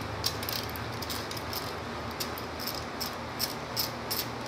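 Socket ratchet clicking in short strokes on the bolts of a golf cart's rear differential cover as they are loosened a little at a time. A few sharp clicks a second over a steady low hum.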